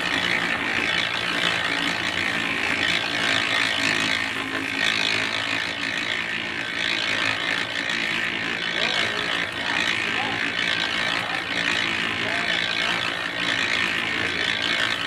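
Cement mixer running steadily, a motor hum under the gritty rush of concrete mix tumbling in the turning drum.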